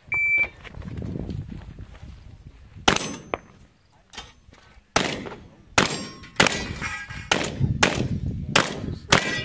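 Electronic shot timer beeps once at the start, then a shotgun fires a string of about ten shots at steel targets. The first shot comes about three seconds in, the rest follow roughly every half second from about five seconds in, and steel rings after some of the hits.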